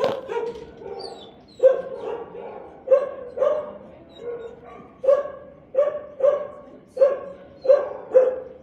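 A dog barking repeatedly, about a dozen sharp barks at an uneven pace, a half-second to a second apart.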